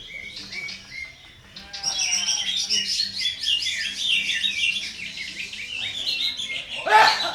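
Green leafbird (cucak ijo) singing a fast, chattering contest-style song full of rough, harsh phrases ('tembakan kasar'). It falls briefly quiet about a second in and gives a louder harsh burst near the end.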